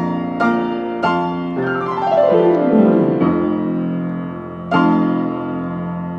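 Upright piano playing a hymn: a few chords, then a run of notes falling from high to low about two seconds in, and a chord struck near the end and left to ring.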